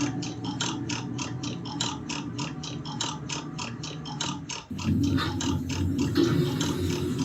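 Schindler elevator machinery clicking rapidly and evenly, about five clicks a second, joined after about four and a half seconds by a louder low hum.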